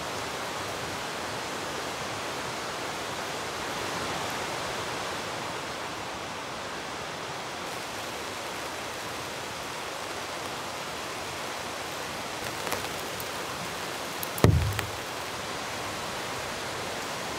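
A nearby river rushing steadily, an even roar of running water. A few seconds before the end comes a single short thump.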